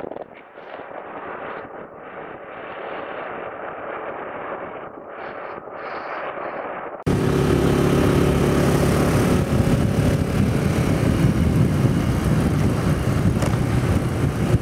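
Motorbike engine running steadily under way, with wind rushing past. For the first half the sound is muffled, then it cuts abruptly to a louder, clearer engine hum and wind noise.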